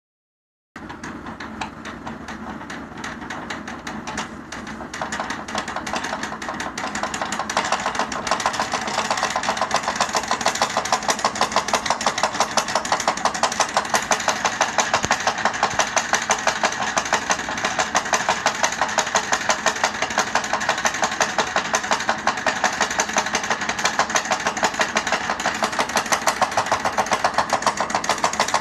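A chair's mechanism making a fast, regular chugging knock, about four beats a second, that sounds like a tractor engine. It starts about a second in and grows louder over the next several seconds.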